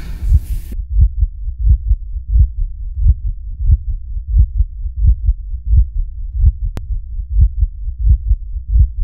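A deep, muffled, heartbeat-like bass pulse in a produced soundtrack, beating about once every 0.7 seconds with softer beats between. Everything higher in pitch drops away under a second in.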